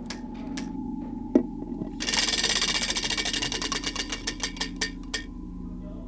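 Hand-spun prize wheel ticking as its rim pegs flick past the pointer. It starts as a fast rattle about two seconds in, then the ticks slow and spread out until the wheel stops about three seconds later. A single sharp knock comes shortly before the ticking starts.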